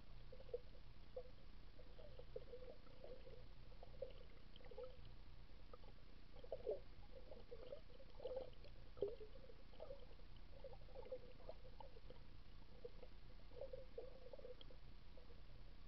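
Muffled underwater sound picked up through a camera's waterproof housing: faint, irregular gurgling and soft bubbly pops, with a few sharper clicks, over a low steady hum.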